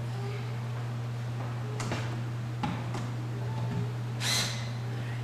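Light knocks and clicks, then a short scraping rustle a little after four seconds in, as a wooden sign is handled and screwed against a wall, over a steady low hum.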